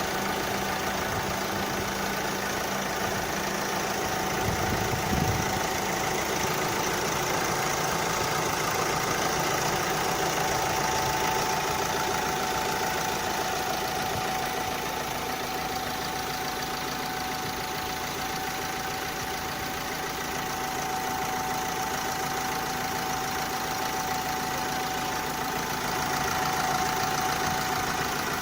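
Hyundai Elantra 1.6 engine idling with an abnormal noise, a steady high whine running over the engine sound, which the owner says appeared a few days after a service. A brief low rumble comes about four to five seconds in.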